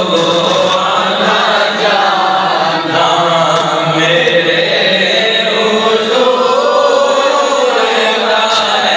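Devotional vocal chanting, with long drawn-out notes that slowly waver in pitch.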